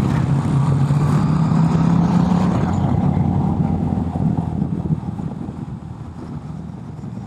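Motorcycle engine running at a steady road speed, heard on board with wind noise, its note growing quieter through the second half.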